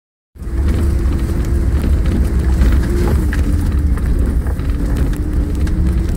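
Engine and road noise of a vehicle driving on a rough dirt track, heard inside the cabin: a steady low rumble with a wavering drone above it and scattered knocks and rattles.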